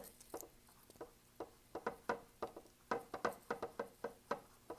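A paintbrush dabbing and tapping on a stretched canvas: a run of short, irregular taps, a few a second, coming faster from about a second and a half in.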